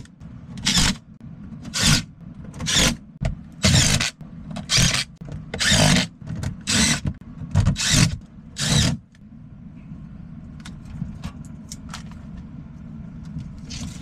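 About ten short rustling, scraping noises, roughly one a second, from someone moving and handling things in a crawl space. They stop about nine seconds in. Under them runs the steady low hum of the running air handler, with a few faint clicks near the end.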